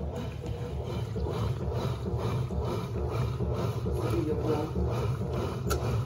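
Top-loading washing machine agitating: the central agitator churns clothes back and forth through the wash water, with a steady repeating rhythm of motor and sloshing water.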